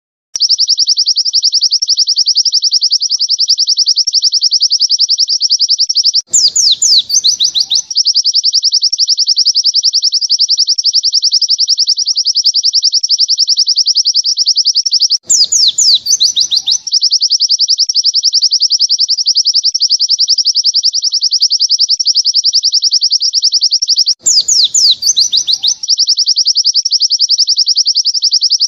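White-eye (pleci) singing its long 'nembak' song: a very fast, even run of high chirps with no pauses. Three times, about every nine seconds, a short burst of falling notes cuts in, and then the run goes on.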